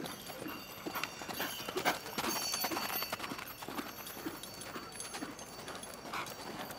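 Horse's hoofbeats on the arena ground: an uneven run of dull thuds as the horse is ridden through a reining figure-eight.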